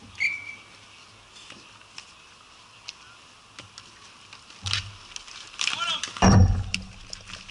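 Ball hockey play on a plastic sport-court: scattered sharp clacks of sticks and ball. Players shout in the last few seconds, with a loud low thump about six seconds in.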